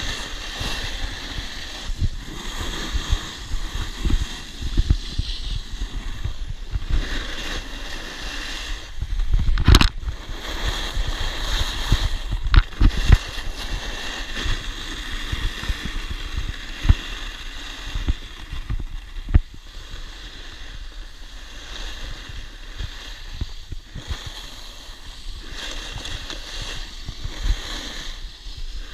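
Wind buffeting the microphone and snowboard edges hissing and scraping over packed snow while riding downhill, with sudden thumps, the loudest about ten and thirteen seconds in.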